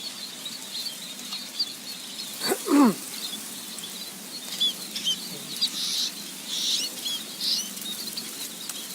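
Small birds chirping continuously in high, quick twitters. About two and a half seconds in, a loud short call slides steeply down in pitch, and a few brief rustling hisses follow later.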